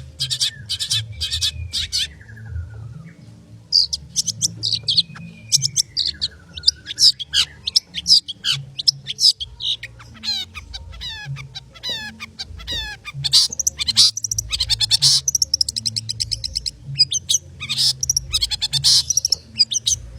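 Long-tailed shrike (cendet) singing fast, dense song: rapid runs of scratchy chattering notes, broken now and then by slurred, gliding whistles. This is the rapid, non-stop 'konslet' singing prized in a bird in full song.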